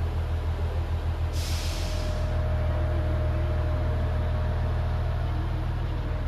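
Diesel railcar engine running with a deep low throb that pulses for the first couple of seconds and then evens out, and a short burst of air hiss from the brakes about a second and a half in.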